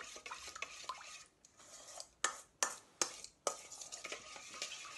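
A spoon stirring a thin yogurt sauce in a stainless steel bowl, scraping and clinking against its sides. Four sharper strokes come between about two and three and a half seconds in.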